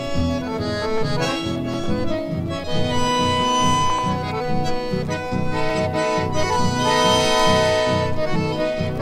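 Instrumental introduction of a chamamé: accordion and bandoneón playing the melody in held, reedy notes over two guitars keeping a steady rhythm in the bass.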